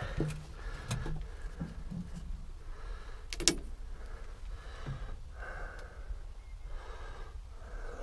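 A person's breathing close to the microphone, with soft rustles of handling, and a single sharp click about three and a half seconds in.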